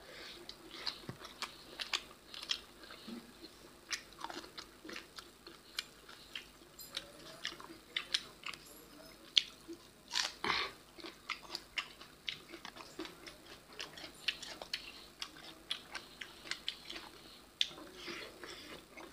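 Two people chewing and smacking their lips while eating rice and pork with their hands: many irregular wet clicks and smacks, with a louder cluster about ten seconds in.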